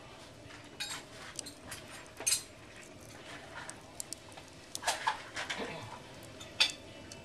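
Logs burning in a glass-fronted wood stove, crackling with irregular sharp pops; the loudest pops come about two seconds in and near the end.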